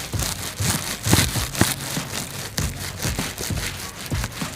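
Hands working soft modelling material (clay or slime): irregular crackling, tapping and rubbing noises, a few sharper taps among them.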